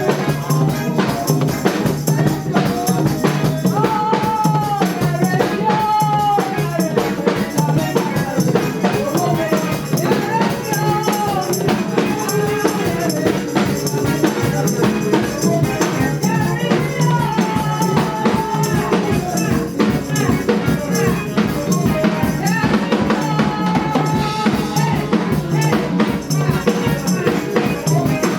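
Live church praise music: a drum kit and tambourine keep a steady, driving beat under a wavering melody line.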